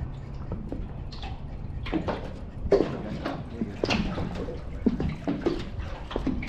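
Small waves lapping and slapping against the hull of an inflatable dinghy, in short irregular splashes.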